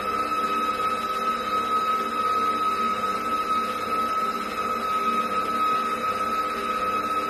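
Electric mixer running at a constant speed, beating butter, sugar and eggs, with a steady motor whine throughout.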